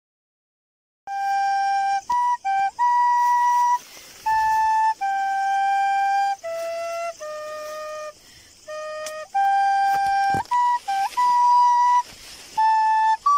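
Blue plastic soprano recorder playing a slow tune of held single notes with short breaks between them, starting about a second in.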